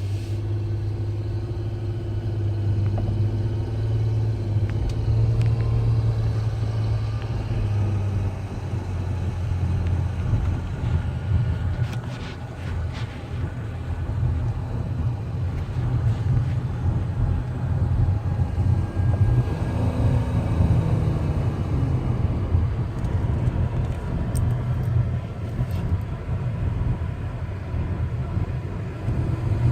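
A 2010 Nissan Maxima making an unexplained noise: a steady low rumble with a fainter wavering tone above it, strongest in the first several seconds. The owner does not know what the problem is.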